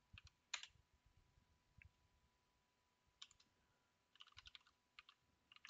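Faint computer keyboard keystrokes: single key clicks, one louder about half a second in, then a quick run of taps just after four seconds and a few more near the end.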